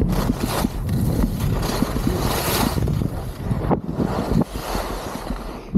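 Wind buffeting the microphone of a helmet-mounted camera on a ski run, a low rumble under the hiss of skis sliding on snow, easing a little near the end.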